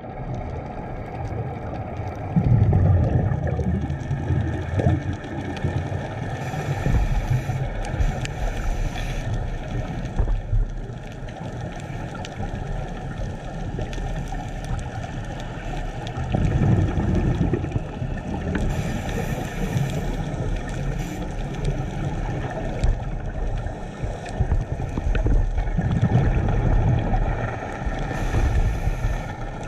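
Scuba diver's regulator breathing heard underwater through a camera's waterproof housing: three slow breaths, each a low rumble of exhaled bubbles followed a few seconds later by a short hiss of inhaling through the demand valve, over a steady low underwater rumble.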